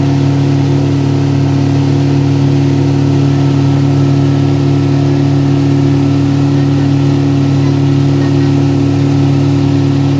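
An engine running at a steady speed: a constant low hum that does not change.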